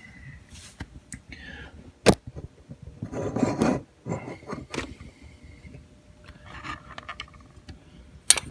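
Handling noise of small hard parts: a sharp click about two seconds in, a brief scraping rub a second later, scattered faint knocks, and another sharp click near the end.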